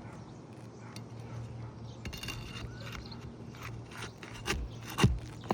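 Roofing tool scraping and clicking against asphalt shingles while nails are worked loose, with a loud sharp knock about five seconds in.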